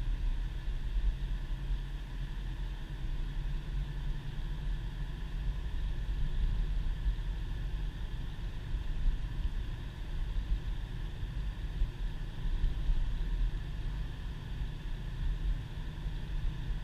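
Steady in-cabin driving noise of a 2010 Subaru Impreza cruising on a snow-covered road: a low rumble from the flat-four engine and the tyres, with a faint hiss over it.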